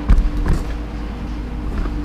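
Knocks from metal cab brackets and parts being handled during fitting: two short dull knocks in the first half second, over a steady low hum.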